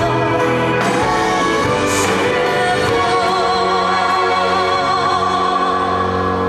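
Live pop music with a woman singing over the band, holding a long note with vibrato from about three seconds in.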